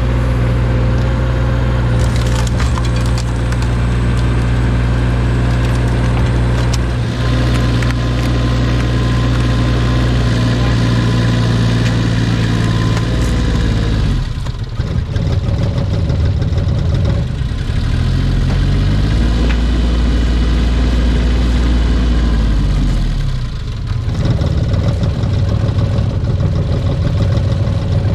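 Compact machine's diesel engine running at full throttle, driving a hydraulic wood splitter, with occasional cracks of splitting wood. About halfway through, the engine slows and labours for several seconds, then picks up again. The machine has a fuel-starvation fault that the owners trace to a sticking electric fuel pump.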